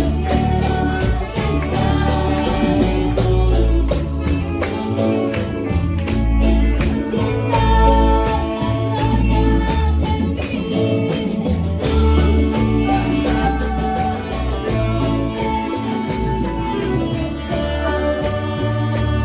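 Music with a steady beat and a bass line.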